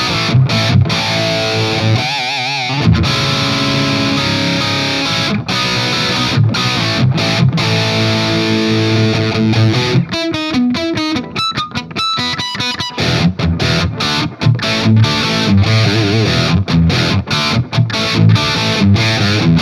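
Distorted electric guitar played through a Marshall Silver Jubilee 2555X 100 W reissue amp: rock riffs and lead lines with wide vibrato on held notes, and a fast, choppy stop-start passage about halfway through.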